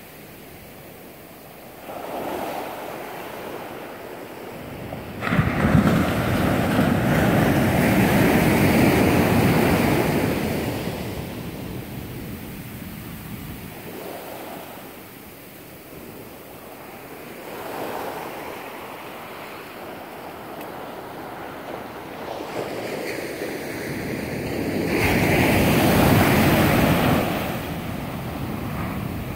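Ocean surf breaking and washing up a sandy beach, swelling and ebbing in surges. It is loudest from about five to ten seconds in and again near the end.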